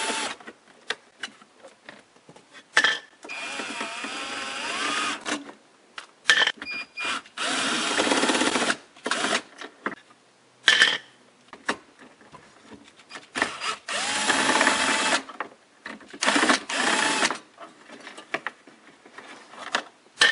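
A handheld power driver with a socket extension spins out the 10 mm bolts under a 2006 Toyota Tacoma's factory stereo. It runs in several short bursts of a second or two, its pitch wavering, with clicks of the socket and bolts between bursts.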